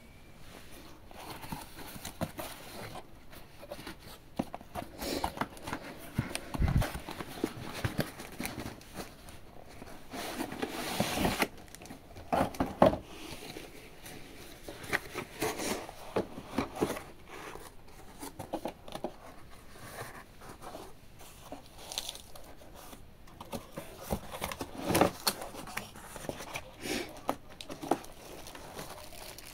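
Cardboard packaging of a digital bathroom scale being handled and opened: irregular rustling, scraping and sliding of cardboard, with a few louder knocks as the box and scale are moved.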